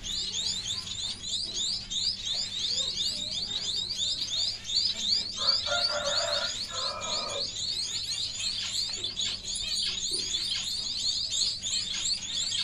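Rapid, continuous high-pitched chirping, many short chirps a second, over a faint steady hum. A brief lower-pitched call comes about halfway through.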